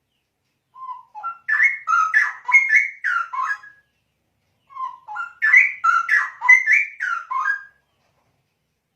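Male straw-headed bulbul (cucak rowo) singing: two rich, warbling phrases of about three seconds each, the second starting about a second after the first ends.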